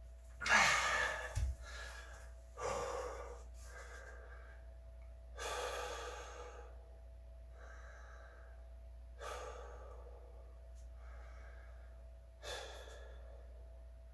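A man breathing hard as he catches his breath after a set of 44 push-ups: about five heavy breaths a few seconds apart, the first the loudest.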